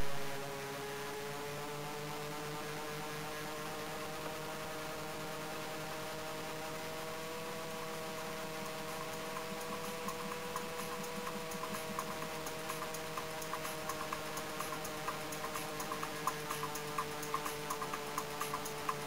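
The motors and propellers of a radio-controlled model Heinkel He 219 in flight, heard from a camera mounted on the model: a steady, high-pitched hum whose pitch rises a little partway through and then settles. Light ticking clicks come in about halfway and grow more frequent toward the end.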